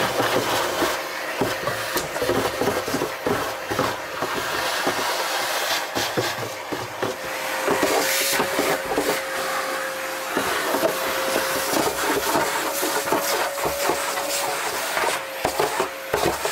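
Vacuum cleaner running with a steady whine while its plastic nozzle is worked over the wooden ribs and back of an opened cello, sucking up dirt. Frequent small clicks and knocks come from the nozzle scraping and tapping the wood.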